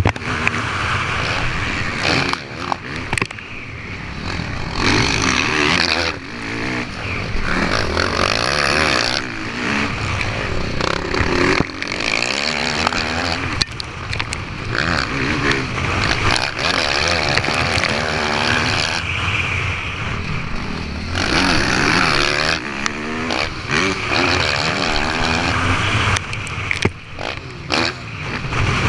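Motocross bike engine heard close up from on the bike, revving up and falling back again and again through the gears as it races over the dirt track.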